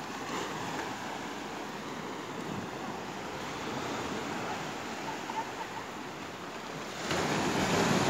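Small sea waves breaking and washing up on a sandy beach, a steady surf wash that swells louder about a second before the end.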